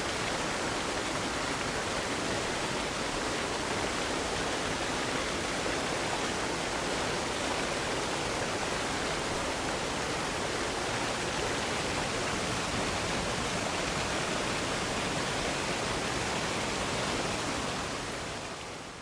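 Steady rush of a waterfall, even and unbroken, fading out near the end.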